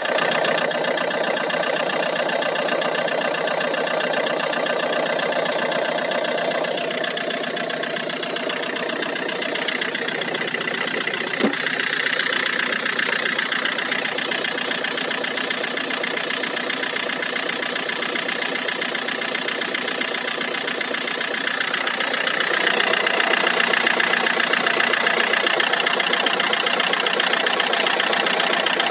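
Peugeot/Citroën DW10CTED4 2.0 HDi four-cylinder turbodiesel running steadily with a knock whose cause the owner is asking about. A single sharp click sounds about eleven seconds in, and the engine gets a little louder a few seconds later.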